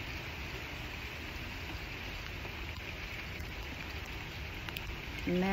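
Steady rain falling, an even hiss with a few faint drip ticks. Near the end a person's voice comes in, holding one long low note.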